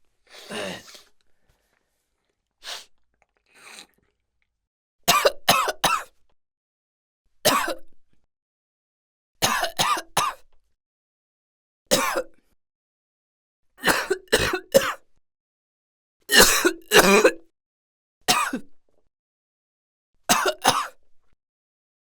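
A person coughing in short fits of one to three coughs, a fit every two seconds or so, with a few fainter breathy sounds in the first few seconds.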